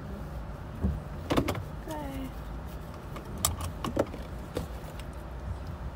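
A steady low rumble of street traffic under a series of sharp knocks and clacks, with a brief squeak about two seconds in.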